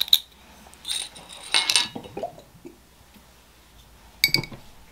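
Light clicks and rattles of a small bottle being handled and its cap twisted off. About four seconds in, a drinking glass clinks sharply on the table with a short ring.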